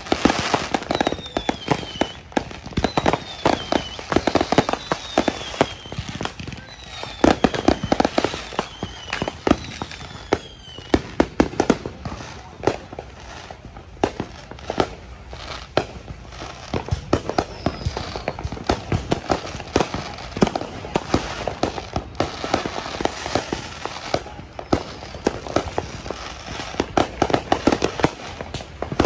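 Dense barrage of consumer fireworks and firecrackers: sharp pops and cracks going off rapidly and overlapping without pause, with short falling whistles about once a second through the first ten seconds.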